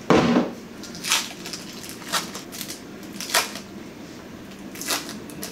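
A knock at the start, then a few sharp crackles and rustles of thin plastic film as an individually wrapped cheese slice is peeled open.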